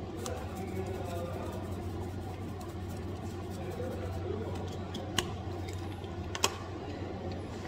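Two sharp clicks from plastic spice containers being handled, a little over a second apart, over a steady low kitchen hum.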